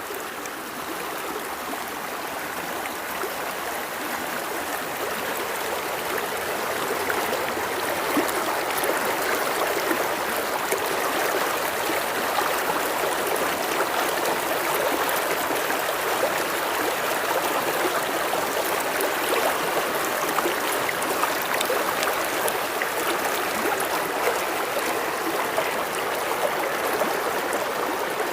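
River water flowing steadily, an even rushing sound that grows louder over the first several seconds and then holds steady.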